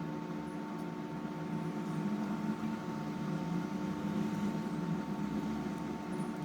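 Steady mechanical hum with a faint, constant high whine, like a small fan or electrical bench equipment running.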